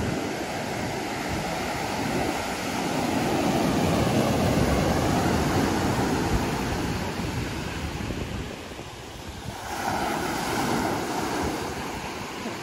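Ocean surf breaking and washing up a sandy beach, with wind on the microphone. The wash swells over the first few seconds, eases off about nine seconds in, and surges again as the next wave comes in about a second later.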